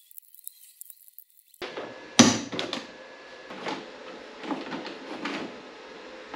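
Handling knocks and clunks. They start about one and a half seconds in: a loud knock, then several lighter knocks spread over the next few seconds, and another loud knock at the very end.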